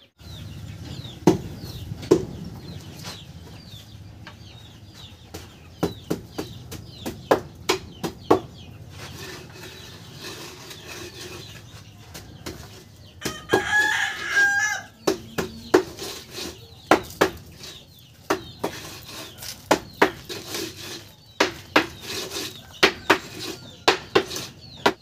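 Sharp metal knocks from a hand-operated steel hollow-block mould being worked and tamped, coming in runs of several knocks. A rooster crows once, about halfway through.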